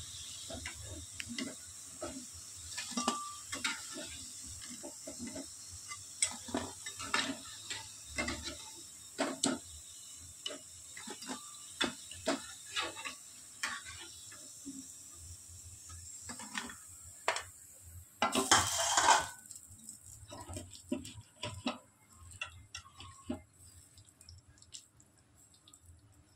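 A metal utensil clinks and scrapes against a cooking pan again and again over the steady sizzle of potato pakoras frying in oil. About two-thirds of the way through a short loud rush of noise sounds, and after it the sizzle stops and only occasional faint clinks remain.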